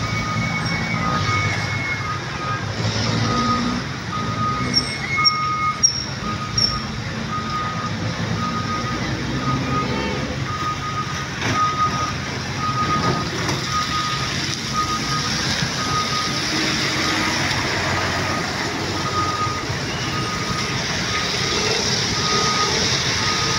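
Road traffic with heavy vehicle engines running, and a reversing alarm beeping steadily about once a second.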